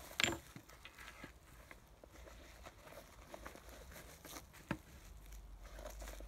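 Handling noises from unpacking a nylon pouch: a sharp click about a quarter second in, then soft rustling of fabric and a crinkling plastic bag as parts are taken out, with a short knock near five seconds as something is set down on the table.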